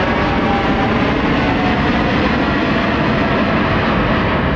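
Jet airliner taking off, its engines at takeoff thrust: a loud, steady noise with faint whine tones that slowly fall in pitch as it passes.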